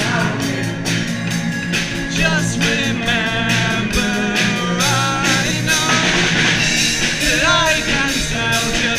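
Live pop-rock band playing: drums, bass guitar, electric guitar and keyboards, with steady drum hits. A male voice sings from about two seconds in.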